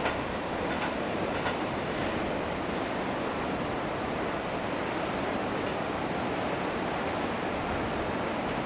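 Steady rushing outdoor noise with no change in loudness, and a few faint clicks in the first two seconds.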